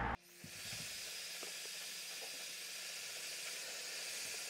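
Head Kandy Travelista hair dryer blowing steadily on the front section of hair: an even, airy hiss that comes on just after the start and holds.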